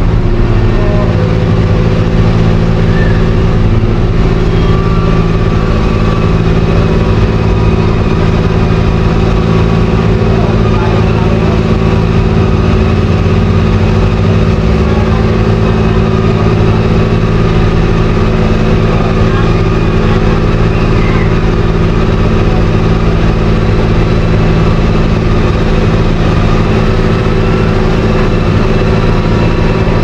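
Engines running steadily: a constant heavy drone with several steady tones that does not rise or fall.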